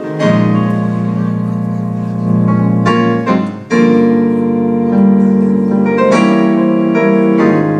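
Keyboard playing held chords, with the chord changing several times: at the start, around three seconds, just before four seconds, around six seconds and again near the end.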